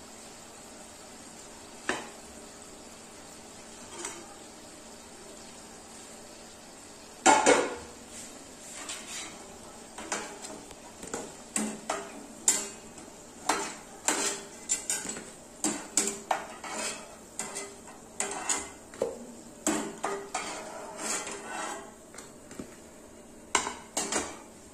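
Kitchen utensils and dishes clinking and clattering in sharp irregular knocks as cooked litti are lifted out of the pan onto a plate. There are a few single knocks at first, a loud one about seven seconds in, then a busy run of clatter.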